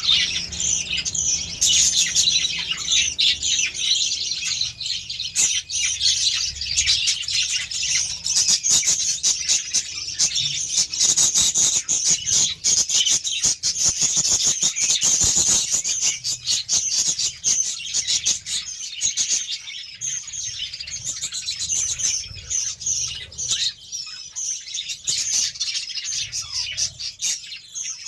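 A flock of budgerigars chattering: many high chirps and warbles overlapping without a break.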